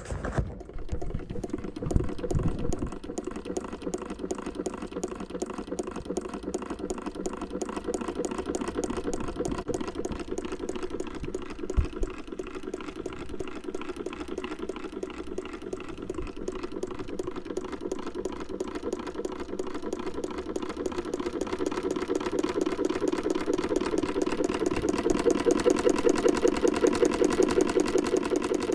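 Industrial sewing machine running steadily, its needle mechanism making a rapid, even ticking rhythm that gets a little louder in the last few seconds. There is a single sharp knock about twelve seconds in.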